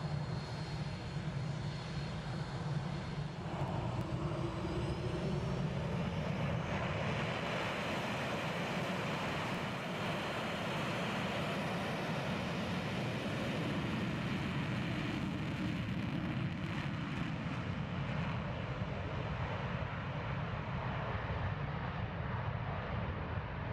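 Northrop F-5E Tiger II fighter jets taking off, their turbojet engines running at takeoff power as a steady, loud noise. A high whine fades out in the first few seconds.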